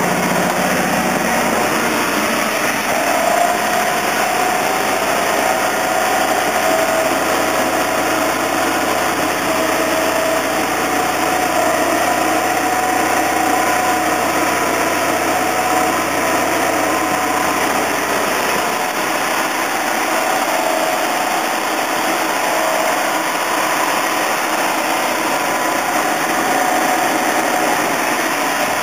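Bucket truck's engine running steadily while the boom is up. A higher, steady whine joins about three seconds in and fades out around nineteen seconds.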